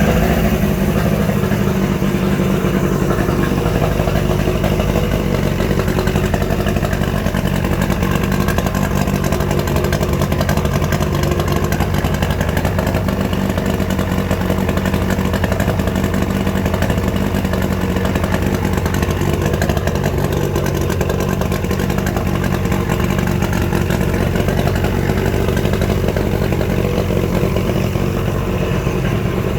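1972 Mercury 65 hp inline three-cylinder two-stroke outboard running steadily out of the water, just after a new ignition part, a fuel pump kit and carb tuning. It sounds healthy: "running good".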